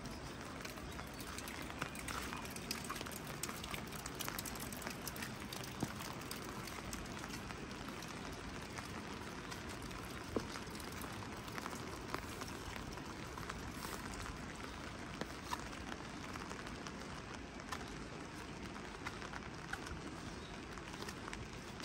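Steady rain falling, with many small, sharp drip ticks scattered through it.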